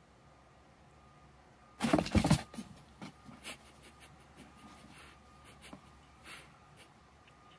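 A cat shifting inside a cardboard box: a loud half-second burst of scratching and rustling cardboard about two seconds in, then a few light rustles.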